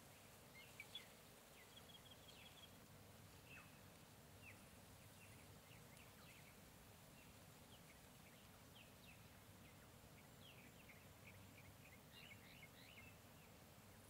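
Faint tropical forest ambience: many short, quick bird chirps over a steady hiss, coming thicker in the second half, with two small ticks about a second in.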